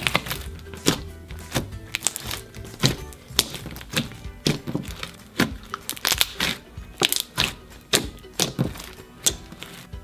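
Glossy slime being kneaded and squeezed by hand, giving sharp wet pops and clicks about twice a second. Background music plays under it.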